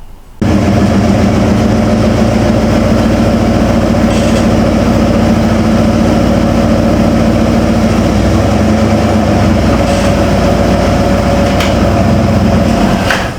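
A vehicle engine running with a steady, loud drone. It starts abruptly about half a second in and cuts off just before the end.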